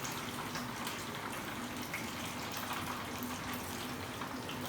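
Chicken wing drumsticks deep-frying in hot oil: a steady sizzle with scattered small crackles.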